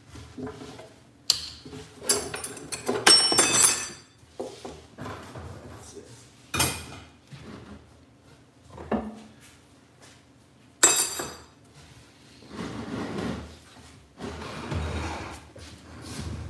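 A heavy 1984 Honda Nighthawk motorcycle engine being turned around by hand on a wooden pallet: a string of clunks and knocks, several with a metallic ring, with rougher shuffling noise between them.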